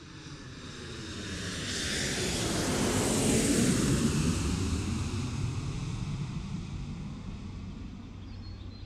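Jet airliner flying overhead: a rushing jet-engine noise that builds to its loudest about three to four seconds in, then slowly fades as it moves away.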